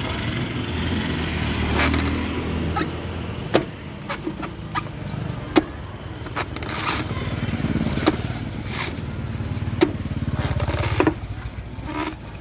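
A blade chopping into a coconut, sharp single strikes about every two seconds, over a steady low engine hum.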